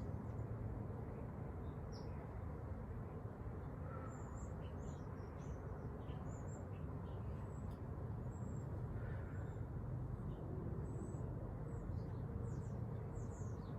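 Birds chirping in short, high chirps scattered throughout, over a steady low background rumble.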